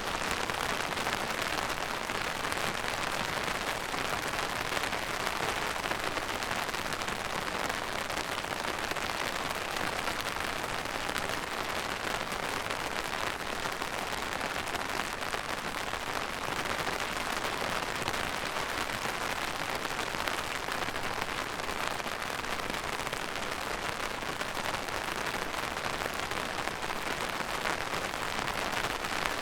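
Steady rain falling and pattering on a surface, an even hiss with fine crackling drops.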